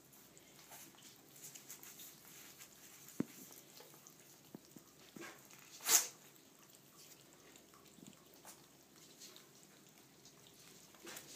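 Ferrets moving about among their feeding bowls on a pet pad: faint scattered scuffs and clicks of paws and claws, a sharp knock about three seconds in, and one short, loud hissy burst about six seconds in.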